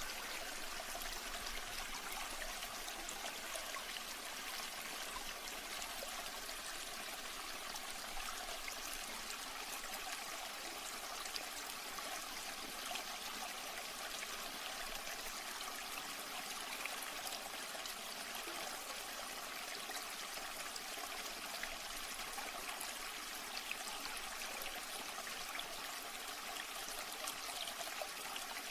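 Flowing water running steadily, an even trickling rush with almost no low rumble.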